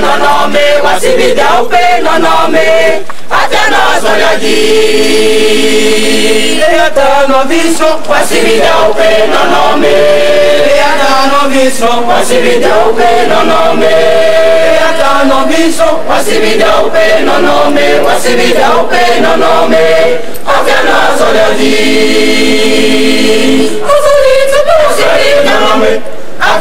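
A mixed choir of men and women singing loudly, holding sustained chords in phrases separated by short breaks.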